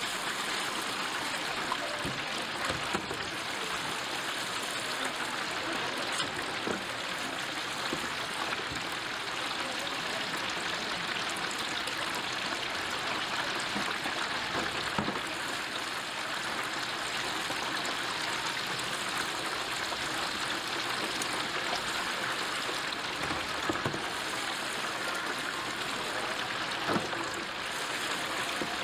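Chicken pieces deep-frying in a vat of hot oil, a steady sizzle with a few faint knocks.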